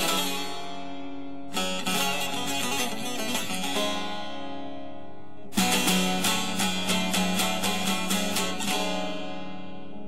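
Background music led by a plucked string instrument, played in phrases that each start sharply and fade.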